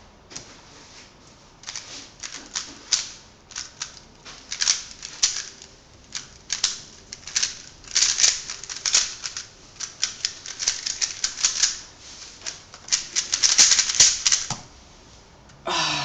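GAN Air UM 3x3 speedcube being turned fast: rapid bursts of plastic clicking and clacking from the layer turns, starting about two seconds in, with short pauses between bursts.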